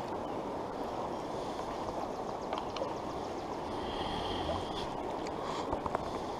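Steady rushing of a shallow, rocky stream's current, with a few faint clicks near the end.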